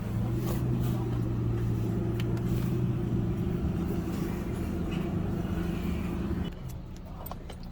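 Steady mechanical hum from a vehicle, holding an even pitch, which cuts off about six and a half seconds in.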